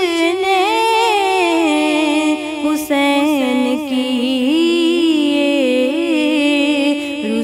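A woman singing a Muharram kalam, a devotional lament, unaccompanied, in long held notes that bend and glide between pitches, with short breaks for breath about three seconds in and near the end.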